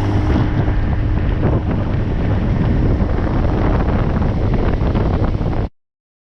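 Small boat under way, with wind buffeting the microphone over the running motor. The sound cuts off abruptly a little over five seconds in.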